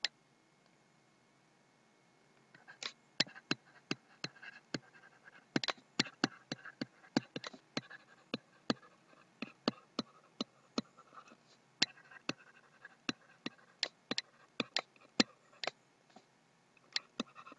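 A stylus tapping and scratching on a tablet while writing by hand: irregular sharp clicks, several a second, with faint scratching strokes between them, starting about two and a half seconds in.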